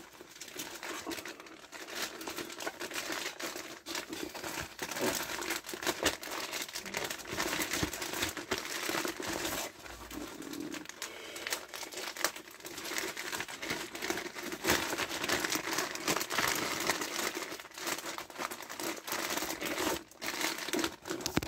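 A mail package and its bubble wrap being opened and handled by hand: a continuous run of crinkling and rustling with many small crackles.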